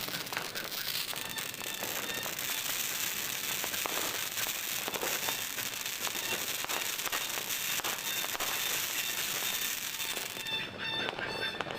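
New Year fireworks and firecrackers going off in a dense, continuous run of crackles and pops with a high hiss. Near the end, broken horn-like tooting tones join in.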